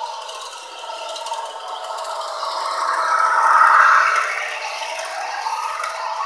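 Model freight train running past: a steady mechanical rattle of small wheels on the track and the locomotive's geared motor, growing louder and peaking as the locomotive goes by close about three to four seconds in.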